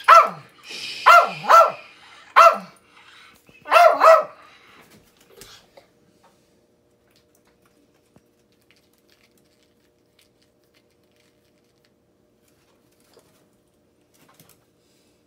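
Small Yorkshire terrier barking on the "speak" command for a treat: six short, sharp barks over about four seconds, two of them in quick succession near the end.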